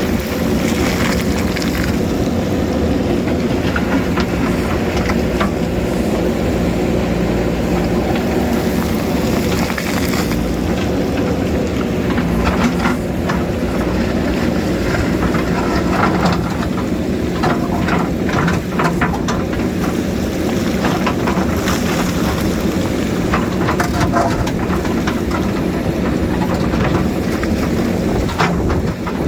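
JCB backhoe loader's diesel engine running steadily under load while digging into rock, with scattered clanks and scrapes, busiest from about twelve to nineteen seconds in.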